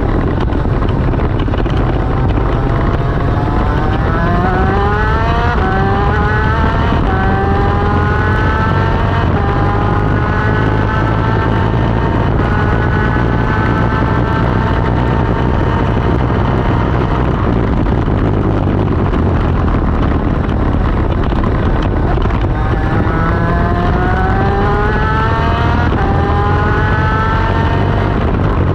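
Onboard sound of a Division 1 superkart's 250cc two-stroke racing engine at speed, its note climbing in steps as it pulls up through the gears, holding high, then climbing through the gears again near the end. A heavy rush of wind noise runs underneath.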